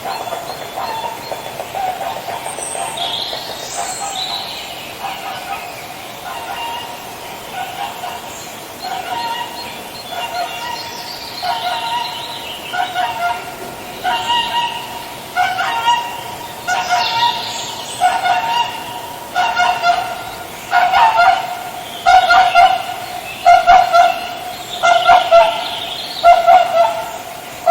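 Swans calling with repeated nasal honks. They start as an overlapping chorus, then become distinct calls at about one a second that grow louder toward the end.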